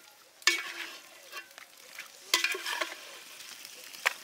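A metal spoon stirring chicken curry in an aluminium pot over the fire. It scrapes through the frying masala and knocks against the pot twice, each knock ringing briefly, over a steady sizzle.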